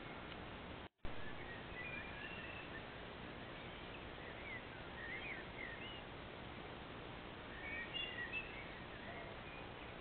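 Faint birds chirping and calling in short rising and falling notes over a steady hiss from the trail camera's microphone, with a brief dropout about a second in.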